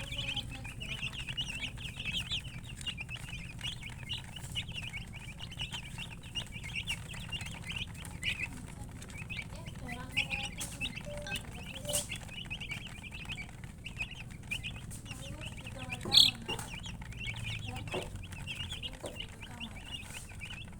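A brood of chicks peeping constantly in short, high-pitched chirps, with a hen clucking low now and then. About sixteen seconds in, one brief call rings out louder than the rest.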